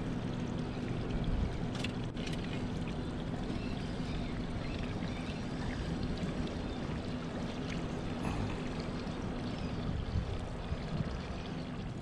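Fast river current rushing against a small boat's hull, with a steady low hum underneath and a couple of faint clicks about two seconds in.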